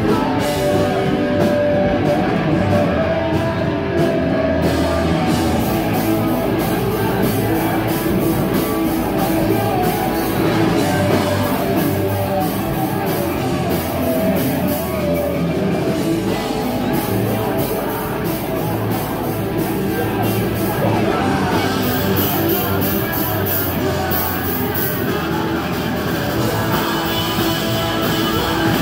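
Loud rock music from a live band: drums, guitar and shouted singing into a microphone.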